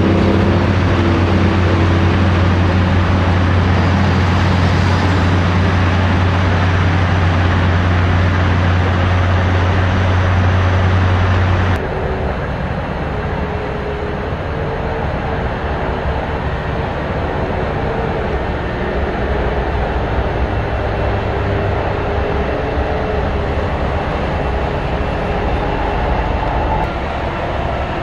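Diesel engines of construction machines running, mixed with motorway traffic noise. A close engine drone is loud and steady for the first twelve seconds, then cuts to a more distant mix of machinery and traffic.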